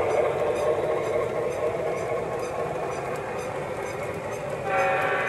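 Lionel O-gauge freight cars rolling along three-rail track: a steady rolling rumble with faint regular clicks from the wheels and rail joints. Near the end, the Delaware & Hudson RS-11 diesel's electronic sound system starts sounding its multi-tone horn, held steady.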